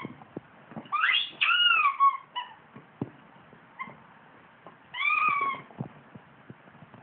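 Yellow rubber chicken squeak toy squeaking as a Malamute chews it: a rising squeak then a longer falling one about a second in, and another squeak about five seconds in, with short clicks of chewing between them.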